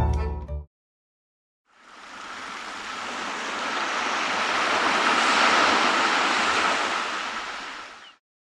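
Ocean surf washing in a slow, steady rush that swells and then fades away near the end. Before it, string-led music cuts off within the first second, followed by a second of silence.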